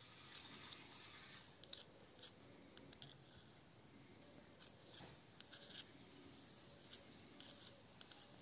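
Faint small clicks and scrapes of a screwdriver tip pushing grease into a steel ball bearing held in the fingers.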